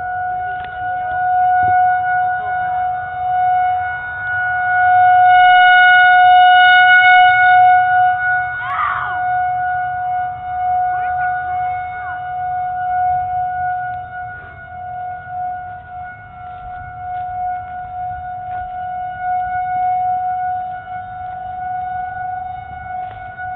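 Outdoor tornado warning siren sounding one steady tone that swells loudest around five to eight seconds in and then eases, as its big rotating horn turns toward and away. A brief short sound cuts in about nine seconds in.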